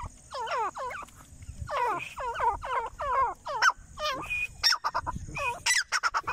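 Grey francolin calling: a series of short falling notes in quick groups of two or three, then a faster run of sharp, high notes near the end.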